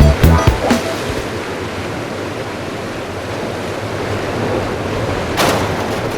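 Steady rush of ocean surf, with one louder wave surge about five and a half seconds in. Background music stops about a second in.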